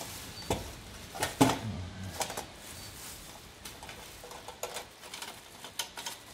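Thin plastic bag crinkling and rustling in hands as a toy train carriage is unwrapped, with sharper crackles now and then.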